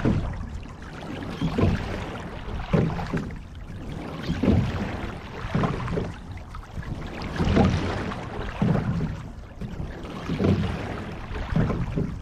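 Water rushing and splashing along the hull of a sculling shell under way, swelling in regular surges about every one and a half seconds with the rowing strokes.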